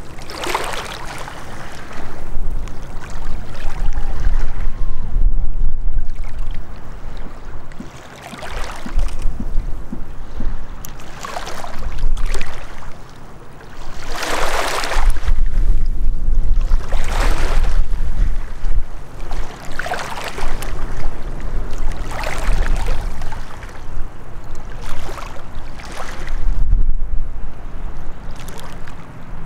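Small lake waves lapping against the rocky shallows, a splashy wash every two to three seconds, with wind rumbling on the microphone.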